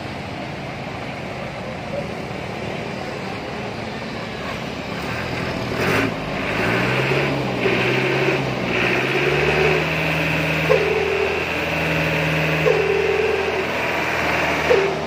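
Old Mitsubishi 'umplung' light truck's engine running through its modified exhaust. It idles steadily, then from about six seconds in it is revved several times, the pitch rising and falling with each rev.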